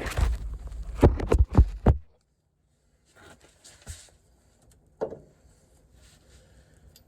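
Metal knocks and clanks from work on a car's front wheel hub and suspension strut: a low rumble with three sharp knocks in the first two seconds, then a couple of faint knocks.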